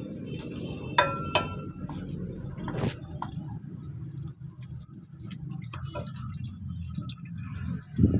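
Used engine oil draining in a thin stream from the JCB's sump drain hole into a plastic bucket during an oil change. Two ringing metal clinks come about a second in, and a thump near the end.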